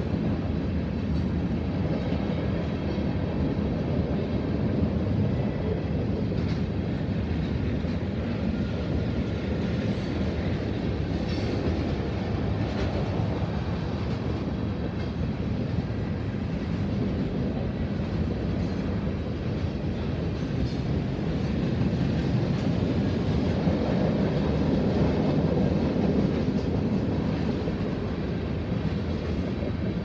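Freight cars of a manifest train rolling steadily past a grade crossing: a continuous, even rumble with a few faint knocks, swelling slightly near the end.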